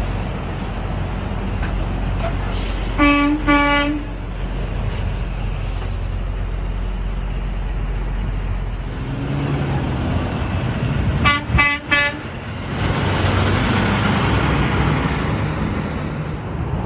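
Vehicle horn blasts over steady traffic rumble: two blasts about three seconds in, then three short quick blasts about eleven seconds in, followed by the louder rush of a vehicle going by.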